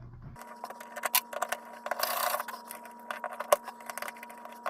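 A plastic light-switch cover plate being fitted and screwed down by hand: small clicks and taps of plastic and metal, and a short rasping scrape of the screw turning about two seconds in, over a steady faint low hum.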